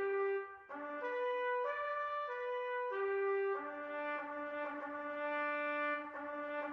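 Solo trumpet playing a slow bugle call in long sustained notes, with a short break about half a second in and one long held note through the second half.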